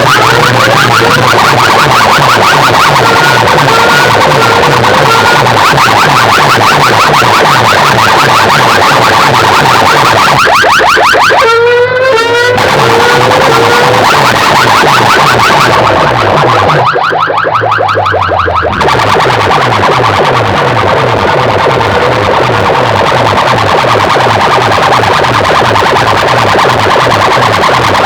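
Large DJ sound systems blasting at full volume in a sound competition: distorted electronic music with fast, repeating, siren-like rising sweeps over a pulsing bass. The highs cut out briefly twice, about 12 seconds in and again around 16 to 19 seconds.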